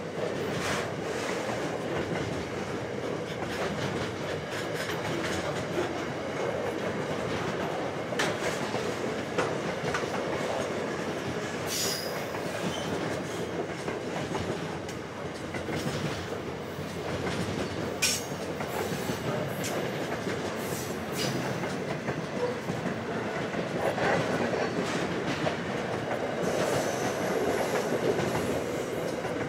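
Container wagons of a long intermodal freight train rolling past, their wheels clicking over the rails. There are brief high wheel squeals around the middle and a longer thin squeal near the end.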